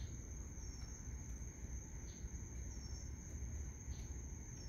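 Crickets chirring in a steady, faint, high-pitched night chorus over a low rumble.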